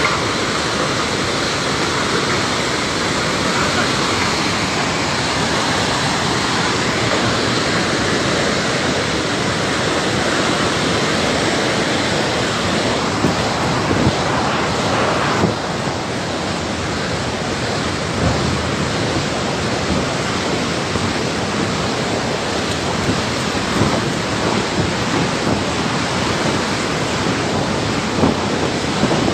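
A river in flash flood: floodwater rushing in a loud, steady roar.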